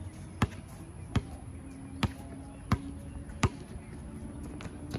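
Basketball dribbled on an outdoor hard court: five sharp bounces, about one every 0.7 s, then the dribbling stops.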